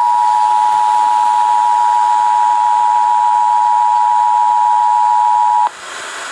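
Emergency Alert System two-tone attention signal, its 853 Hz and 960 Hz tones sounded together as one steady, harsh tone, heard from a radio broadcast. It cuts off suddenly about five and a half seconds in, leaving only hiss.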